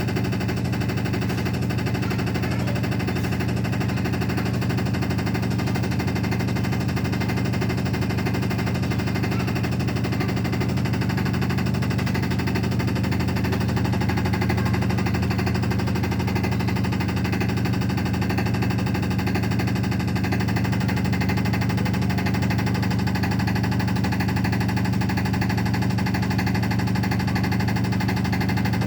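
Realme washing machine in its spin cycle, running with a loud noise: a steady hum under a fast, continuous rattling clatter.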